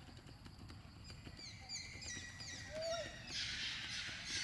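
Background birdsong: a run of short, high falling chirps, about three a second, through the middle. Near the end comes a brief burst of hiss.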